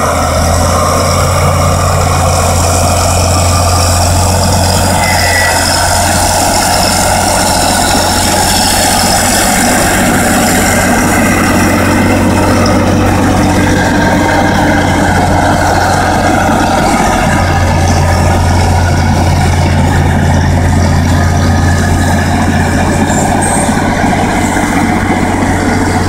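Caterpillar D6H crawler bulldozer at work pushing earth, its six-cylinder turbo diesel running steadily with a deep drone. The low engine note eases for a stretch and comes back strong about seventeen seconds in.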